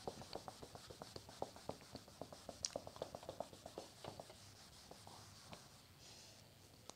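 Cloth wiping a whiteboard: a run of faint rubbing strokes, about four a second, that thins out after about four seconds.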